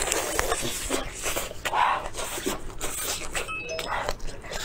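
Close-miked eating: biting into and chewing cheese-topped grilled shellfish, heard as an irregular run of short clicks and wet mouth noises.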